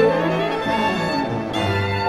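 Instrumental background music: a chamber ensemble playing a melody of held notes, some of them sliding in pitch.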